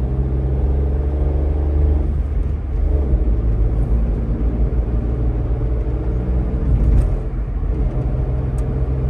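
Car engine and road noise heard from inside the cabin while driving, a steady low drone. The engine note changes about two seconds in.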